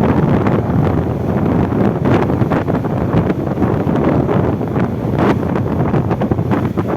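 Strong wind buffeting the microphone in constant gusts: a loud, rumbling roar with frequent brief blasts.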